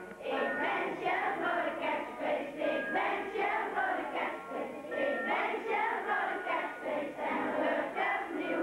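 A group of children singing together in unison, a sung song with held notes running on without a break.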